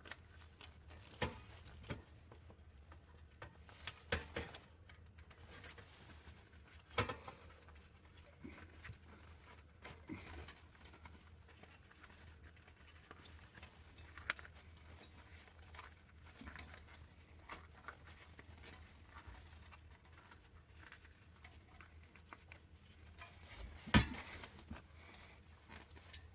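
Scattered light clicks, taps and rubbing of hands working a wheelchair tyre on and off its rim, sped up, with one sharper knock near the end.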